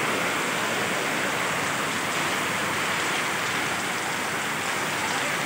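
Heavy monsoon rain pouring down steadily in big drops: an even, unbroken rushing hiss.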